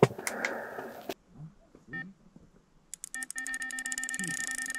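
Electronic carp bite alarm sounding about three seconds in: its beeps come fast and run together into a near-continuous tone, the signal of a fish taking line on a run.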